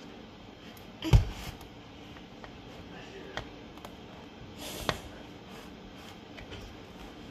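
A plastic ice cream scoop working in a plastic tub of hard ice cream: faint scrapes and ticks, with a dull thump a little over a second in and a smaller knock near five seconds.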